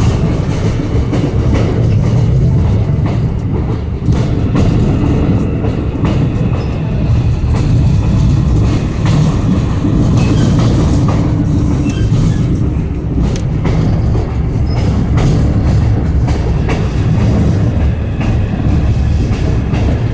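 Passenger train heard from inside the carriage while running: a steady low rumble from the wheels and running gear, with occasional clicks of the wheels over rail joints.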